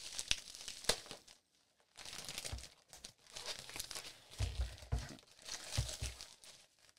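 Packaging around a graded comic slab being torn open and crumpled by hand, rustling and crinkling in repeated bursts with a short pause about a second and a half in. A few dull bumps come in the second half.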